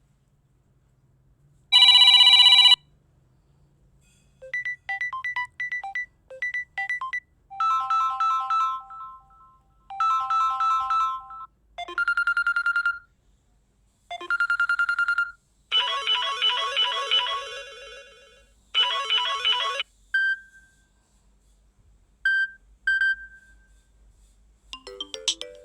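Samsung Galaxy A12 ringtones playing one after another: a string of short electronic melodies and chimes, each lasting a second or two, with brief pauses between them. The loudest is a single bright chord about two seconds in.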